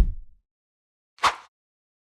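A dull, low thump dying away at the start, then one brief sharp noise about a second in, with dead silence between and after.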